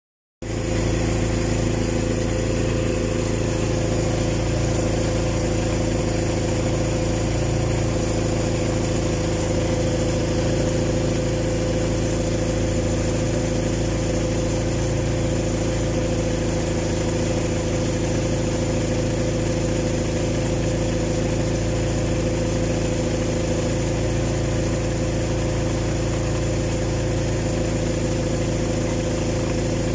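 Toyota 5K four-cylinder petrol forklift engine idling steadily.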